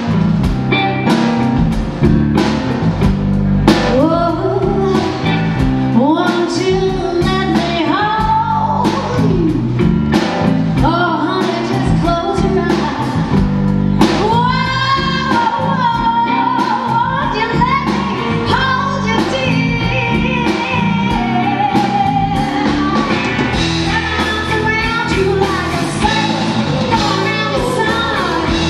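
Live blues band playing, a woman singing lead over electric guitar, bass and drums.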